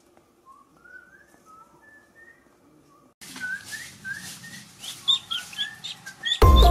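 Birds chirping: faint whistled phrases at first, then a sudden jump in level about three seconds in, with busy short high chirps. Loud music comes in just before the end.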